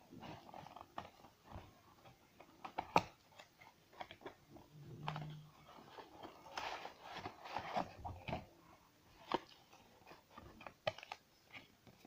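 Cardboard box being opened by hand: flaps creasing and scraping, card crackling, and paper inserts rustling as they are pulled out, in irregular clicks and crinkles with one sharp snap about three seconds in.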